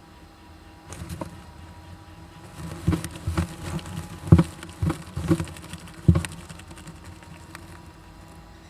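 Japanese giant flying squirrels, a mother and young, inside a nest box: a run of short, irregular sounds starting about a second in and stopping just after six seconds, loudest near the middle.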